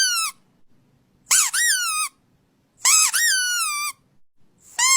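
A squeaky toy squeaked again and again, about one squeak every second and a half. Each squeak is high-pitched, lasts under a second and rises then falls in pitch. One squeak ends just after the start and another begins near the end.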